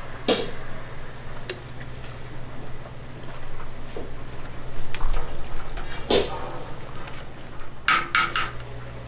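Kitchen work: dishes and utensils clinking and clattering, with some liquid being handled, over a steady hum. The sharpest clatters come near the start, about six seconds in, and in a quick cluster near the end.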